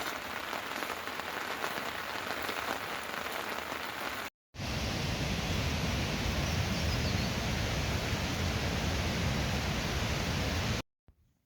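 Steady rain falling. It cuts out briefly about four seconds in and comes back fuller and deeper, then stops abruptly near the end.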